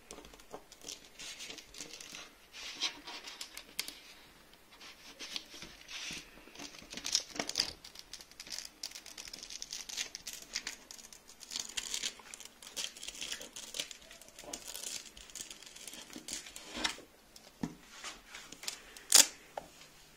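Honeycomb beeswax sheet crackling and rustling under the fingers as it is rolled tightly around a wick, a dense run of small irregular crackles and clicks, with one sharper click near the end.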